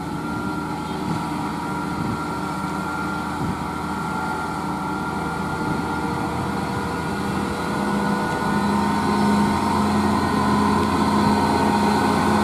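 Heavy UD Quester diesel truck engine labouring uphill at low speed under a load of steel rebar, a steady drone that grows louder through the second half as the truck draws closer.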